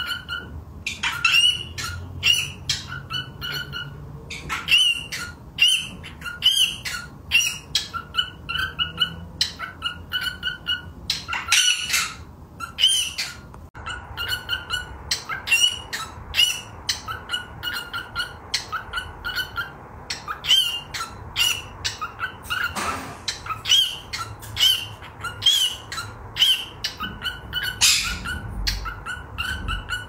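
Cockatiel calls: a steady run of short, harsh chirps and squawks, about two a second.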